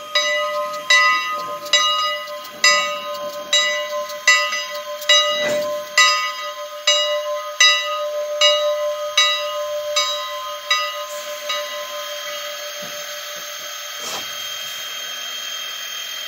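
Bell of Canadian National 89, a 1910 2-6-0 Mogul steam locomotive, ringing steadily at a little more than one stroke a second, then stopping about two-thirds of the way through. A steady steam hiss carries on underneath and is left alone at the end.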